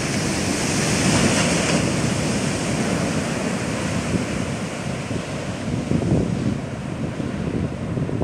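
Heavy shorebreak waves breaking and churning into whitewater against a rock jetty, a steady surf rush that swells about a second in and again around six seconds. Wind buffets the microphone.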